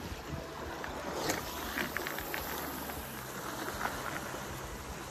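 Sea water washing and lapping against shore rocks, with wind on the microphone, and a few light ticks and taps between about one and four seconds in.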